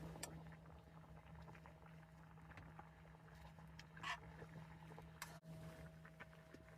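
Near silence: a faint steady low hum, with one brief faint sound about four seconds in.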